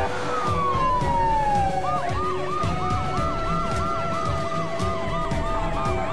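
Police sirens on a moving convoy: one wail falls in pitch over the first two seconds, then a fast yelp repeats about two to three times a second, with a second siren holding a steady tone alongside. Music plays underneath.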